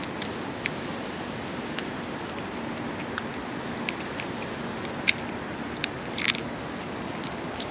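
Cat chewing its food in irregular crunchy clicks, the loudest about five and six seconds in, over a steady background hiss.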